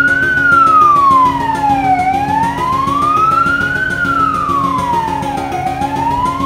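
Emergency vehicle siren in a slow wail, its pitch rising and falling smoothly about once every three and a half seconds, over a steady low hum.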